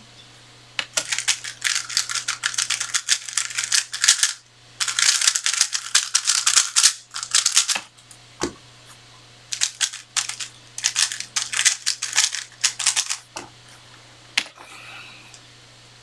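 A 3x3 speedcube being turned very fast, a dense clatter of plastic layer-turn clicks. It comes in a long run of about seven seconds, then a single knock, then a second run of turning about four seconds long.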